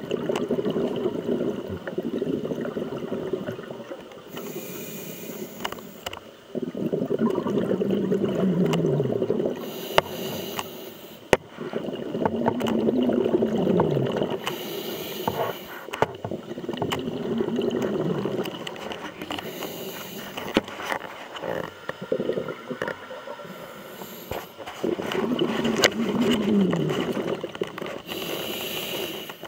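Scuba diver breathing through a regulator underwater: long hissing breaths carrying a low tone that rises and falls, alternating with short bursts of bubbles, about every five seconds. A few sharp clicks.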